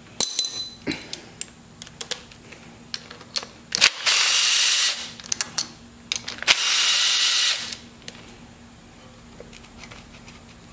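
Cordless drill-driver running in two bursts of about a second each, a few seconds apart, spinning out the two 12 mm mounting bolts of a motorcycle's front brake caliper. Light clicks of the socket and tools come before and between the bursts.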